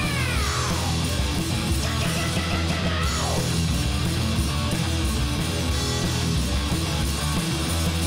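Heavy rock background music with electric guitar, including a downward pitch slide at the start and another about three seconds in.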